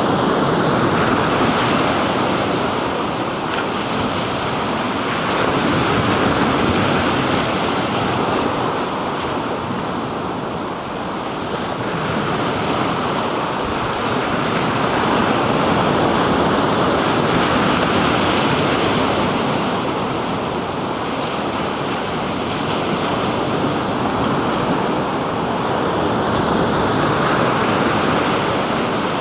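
Black Sea waves washing onto the shore, the surf swelling and easing every few seconds, with wind buffeting the microphone.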